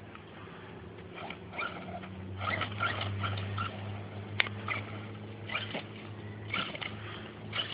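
Electric RC monster truck driving in short bursts of throttle: its brushless motor gives a series of brief chirpy whines over a steady low hum.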